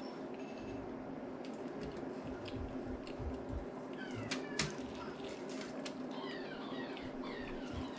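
Eating sounds: dipping into a cup, then biting and chewing a soft tortilla taco, with small clicks and one sharp click about halfway through. Several short, high, falling animal calls sound about halfway through and again later.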